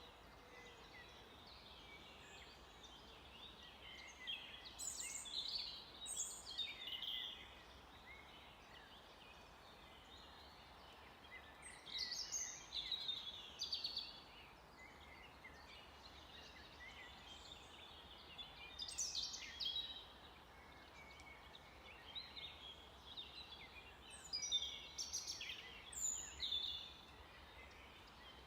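A songbird singing short bursts of quick, chattering song about every seven seconds, four phrases in all, over a steady faint hiss of background noise.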